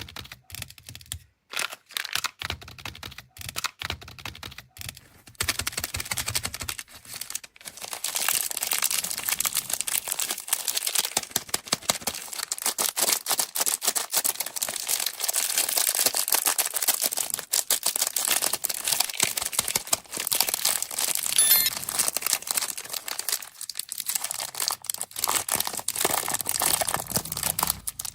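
Plastic candy wrapper being handled, crinkled and torn open. There are scattered clicks and taps at first, then dense, continuous crinkling from about eight seconds in.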